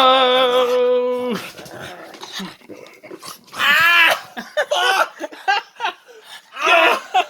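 Dog's playful vocal noises during rough play: one long, steady whine in the first second and a half, then several shorter rising-and-falling whines and yips.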